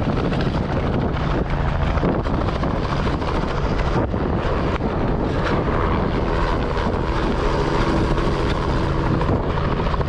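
Helicopter running steadily with its rotor beat, heard from on board with wind buffeting the microphone.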